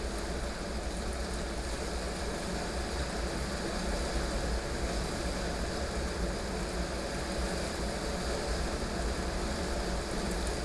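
Heavy rain falling steadily, with a constant deep rumble underneath and no distinct thunder crack.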